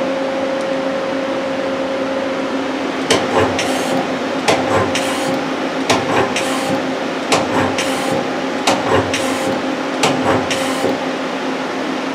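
Daewoo Puma 240 CNC lathe's 12-position tool turret indexing station by station, with a pair of sharp clunks about every second and a half, over the steady hum of the running machine. The clunks start about three seconds in, come about six times, and stop near the end.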